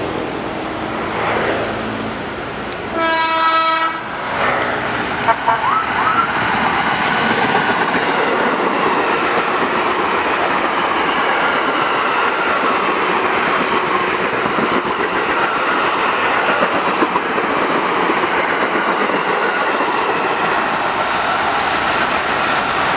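KRL electric commuter train sounds one horn blast of about a second, three seconds in, then runs past close by with a steady rumble of wheels on the rails.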